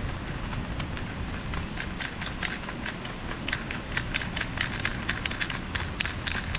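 Wind rumbling on the microphone, with a quick irregular run of light clicks and taps that thicken from about two seconds in.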